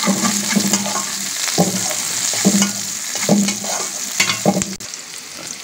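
Sliced onions sizzling in mustard oil in a steel pan, nearly browned, while a metal spatula stirs them and scrapes the pan in several strokes about a second apart.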